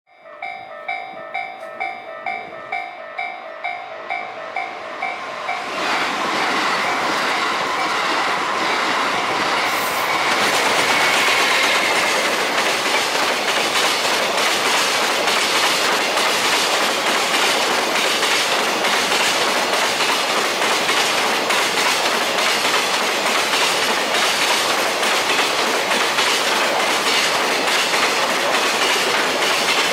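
Japanese level-crossing warning bell ringing about twice a second. About six seconds in, a JR Freight EF210-hauled container freight train arrives and passes: a steady, loud rumble of wagons with the rapid clickety-clack of wheels over rail joints.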